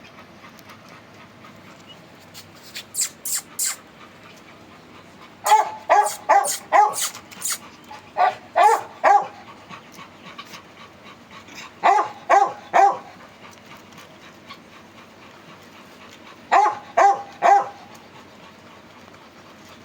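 Beagle puppy barking in four quick bursts of three to five short barks each, a few seconds apart. A few short high squeaks come before the first burst.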